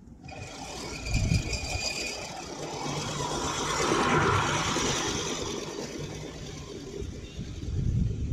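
A Sun Joe MJ502M 20-inch manual reel mower pushed across short-cut Kentucky bluegrass past the camera, its spinning reel cutting with a whirring rattle that swells to a peak about four seconds in and then fades as it moves away.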